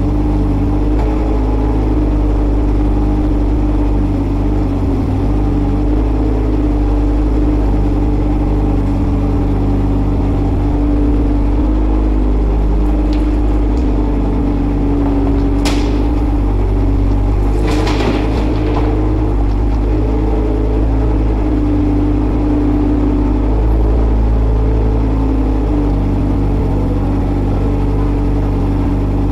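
JCB 803Plus mini excavator's diesel engine running steadily under hydraulic load, its pitch shifting a little as the arm and bucket work. About halfway through there is a sharp clank, then a short rattle a couple of seconds later.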